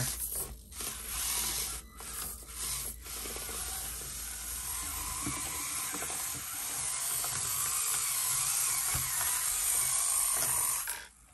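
Basher Rocksta 1/24-scale mini rock crawler's small electric motor and geared drivetrain running under load with a high whine and grinding as it crawls over rock, stopping and starting a few times in the first three seconds, then running steadily and cutting off near the end.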